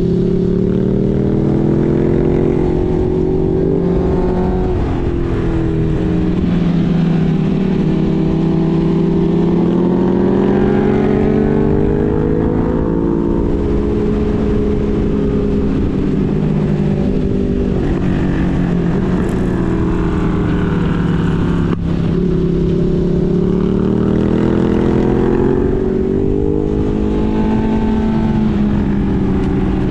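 Motorcycle engine heard from on board while riding, its pitch rising and falling again and again as the rider accelerates and eases off through a run of bends, over steady wind rumble. A single sharp click cuts in about two-thirds of the way through.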